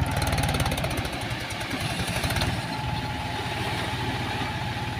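Trakstar tractor's diesel engine running with a fast, even low pulse, working harder for the first two and a half seconds and then settling to a steadier run, while its raised tipping trailer unloads soil.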